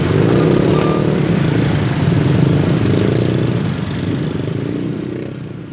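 Dozens of motorcycles and scooters running together and pulling away over a level crossing, a dense mix of small engines at varied revs. The sound fades out near the end.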